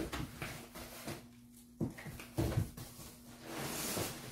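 A folded metal-frame backpack beach chair being handled and lifted: a sharp knock right at the start, a few lighter knocks about two seconds in, and rustling near the end.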